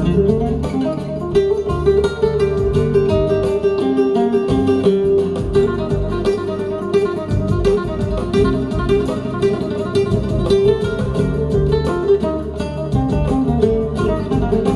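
Recorded music played over PSB T3 tower loudspeakers fitted with Aperion supertweeters: an instrumental passage of plucked, flamenco-style acoustic guitar over a bass line, with a steady held note underneath.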